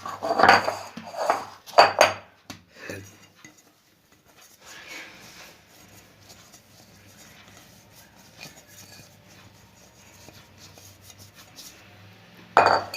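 Kitchen utensils and dishes clattering: a few sharp clinks and knocks in the first three seconds, quieter handling between, and one more clatter near the end.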